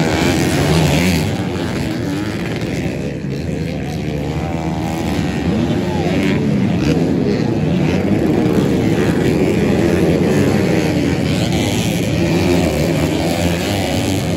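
Several racing motorcycle engines revving on a dirt track, their pitch rising and falling as the riders accelerate and shift through the circuit.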